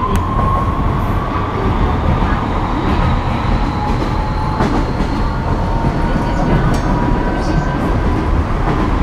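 Kyoto Municipal Subway Tozai Line 50 series train running under power, its Mitsubishi GTO VVVF inverter whining in several tones that rise slowly as the train gathers speed. Beneath the whine is a steady rumble of wheels and running gear.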